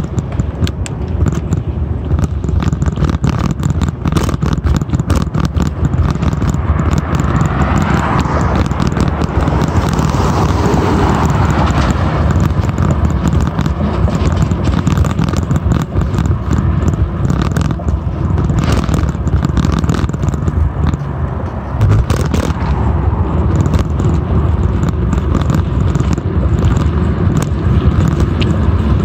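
A bicycle being ridden on pavement: steady low wind rush on the microphone with tyre rumble, and many small knocks and rattles as the bike goes over cracks and bumps. A car's swelling rush passes about eight to twelve seconds in.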